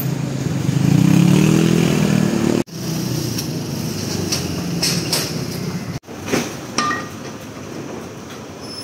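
Roadside traffic noise: a motor vehicle's engine passes close by in the first couple of seconds, then steadier street noise with a few light clinks. The sound breaks off abruptly twice.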